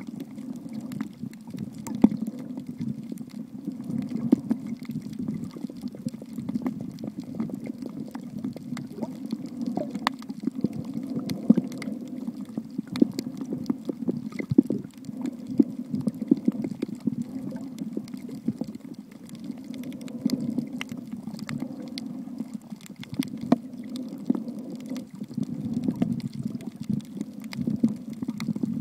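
Muffled underwater sound picked up by a camera held below the surface over a coral reef: a steady low rumble of moving water with many small scattered clicks and crackles.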